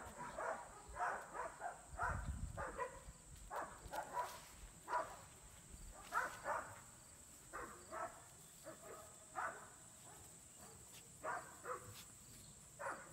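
Pyredoodle puppies playing and giving short yips and barks at irregular intervals, over a steady high insect trill.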